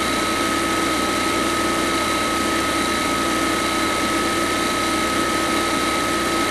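Small electric motor of a toy borewell drilling rig running steadily, turning a threaded-rod drill, with a constant high whine over a hiss.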